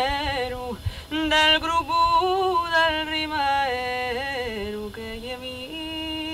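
A single voice singing slow, long held notes that bend and turn in pitch, with no words heard clearly.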